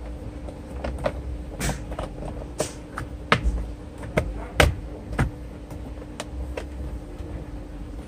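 Plastic steering-column trim covers being handled and pressed into place around the clock spring: a string of irregular clicks and knocks, the loudest between about three and five and a half seconds in, over a steady low hum.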